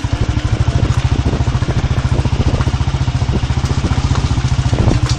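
Motorcycle engine running steadily with a fast, even pulsing beat, heard from on board the moving bike.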